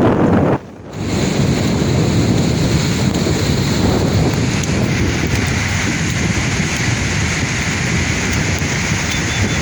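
Sea waves washing ashore in a steady, loud rush of surf. The sound drops out briefly about half a second in, then resumes.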